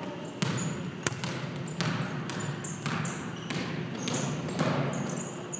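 Basketball being dribbled on a hardwood gym floor: sharp bounces about twice a second, each with a short echo.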